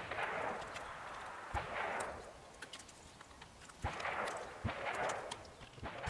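Handling noise from unplugging the wiring connectors behind a steering wheel: swells of plastic and wire rustling, with a few sharp clicks.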